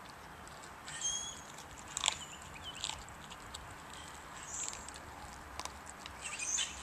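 Greyhound chewing raw chicken: irregular crunches and clicks of jaws and teeth, roughly one every second.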